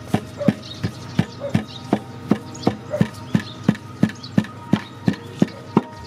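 Wooden pestle pounding chili and garlic in a wooden mortar: a steady run of dull knocks, about three strokes a second.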